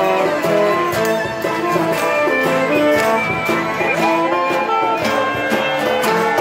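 Live acoustic music: many acoustic guitars strummed together in a steady rhythm with a cello playing along.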